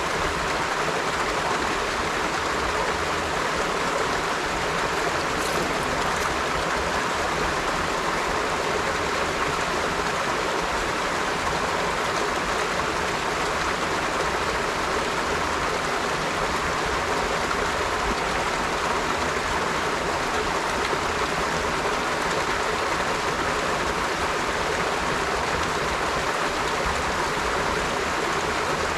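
River water flowing steadily over stones, a constant rushing babble with no change.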